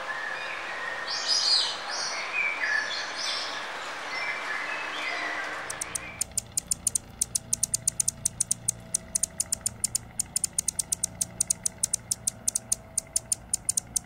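Birds calling over a steady hiss of background noise. About six seconds in, this gives way to a fast, even series of sharp, very high ticks, about five or six a second, from a perched male Anna's hummingbird.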